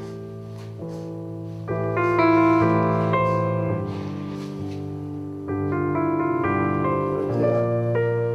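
Background piano music: gentle sustained chords that change every second or so, swelling about two seconds in.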